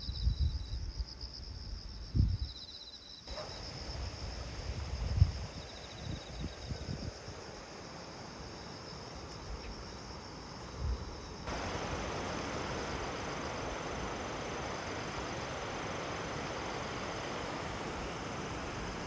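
Insects singing outdoors: a steady, high, finely pulsing drone. Scattered low bumps come in the first half, and a steady rushing noise grows louder about eleven seconds in.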